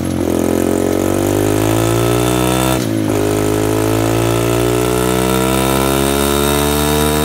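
Small Honda CRF dirt bike's single-cylinder four-stroke engine revved and held at high revs, the pitch climbing slowly, with a brief dip about three seconds in.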